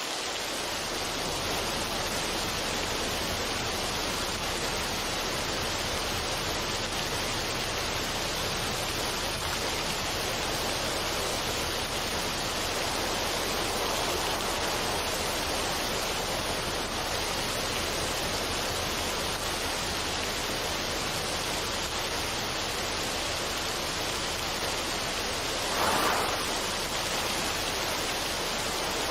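Steady, even rushing noise with no tune or beat, like running water or a noise track, with one brief louder swell near the end.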